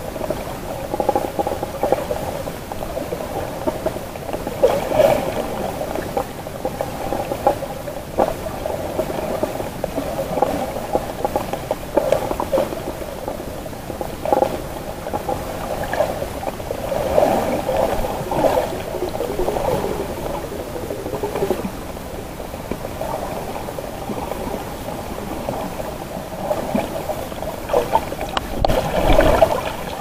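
Muffled underwater noise of water moving around a submerged camera as it is swum over the seabed, a steady wavering murmur with occasional soft knocks and a louder, deeper surge near the end.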